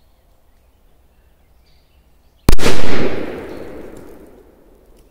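A Korsar 8 firecracker going off: one very loud, sharp blast about two and a half seconds in, its rumble and echo dying away over the next two seconds.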